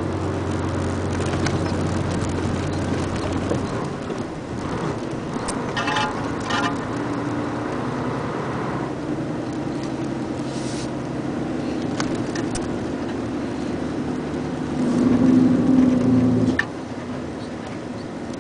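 Truck engine running steadily while driving, with road noise and a few light rattles. Near the end the engine grows louder for about two seconds, then drops off suddenly.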